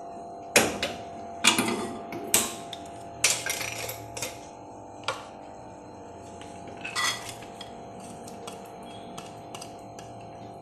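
Kitchen utensils and a bowl knocking and clattering, then dry lentils tipped from a plastic bowl into an empty pressure cooker, with a few scattered ticks of falling grains near the end. Soft steady background music underneath.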